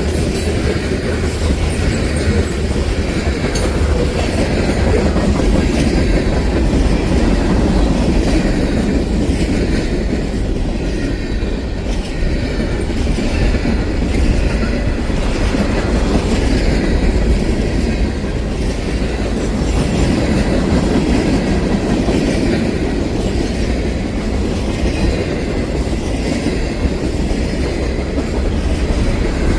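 Long freight train rolling past steadily, its cars' wheels running over the rails.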